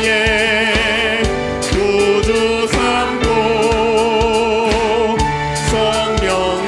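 Church praise band playing a worship song: singers holding notes with vibrato over keyboards and a steady drum beat.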